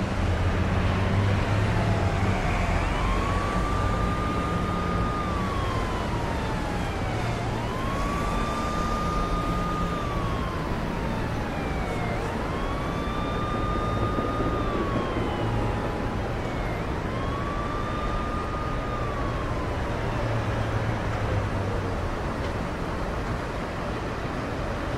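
Emergency vehicle siren wailing in four slow cycles, each rising quickly, holding, then falling away, over a steady low rumble of street traffic.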